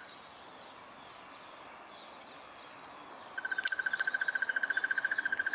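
About three and a half seconds of faint, higher scattered chirps, then a crested barbet starts its long, rapid trill, many even pulses a second on one steady pitch, and keeps it going. A sharp click sounds just after the trill begins.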